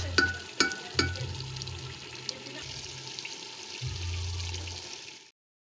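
Pot of eru in palm oil sizzling and bubbling as it simmers, with a wooden spoon knocking against the metal pot about three times in the first second, each knock ringing briefly. The sound cuts off suddenly near the end.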